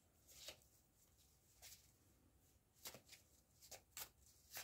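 Faint, scattered clicks and taps of small reading cards being handled and laid down, about six in all, with near silence between them.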